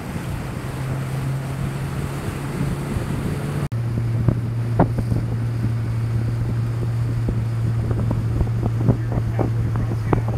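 Boat motor running with a steady low hum under wind noise on the microphone and water rushing past. About a third of the way in the sound briefly drops out and resumes with the hum slightly lower, and scattered sharp taps follow.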